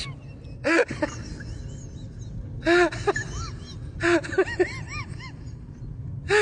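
Short runs of laughter, quick rising-and-falling 'ha-ha' syllables, heard three times, about a second in, around three seconds and around four seconds, over a steady low background rumble.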